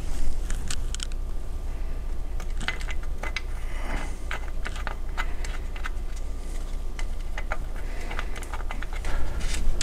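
Scattered light metallic clicks and taps of a hand tool and the threaded governor cap being worked back onto a 12-valve Cummins P-pump injection pump, over a steady low hum.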